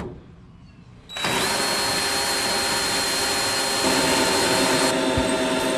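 Handheld electric drill boring a quarter-inch bit into the steel frame of a truck to clear the centre of a pilot hole. It starts about a second in and runs steadily with a high motor whine, its tone shifting about four seconds in.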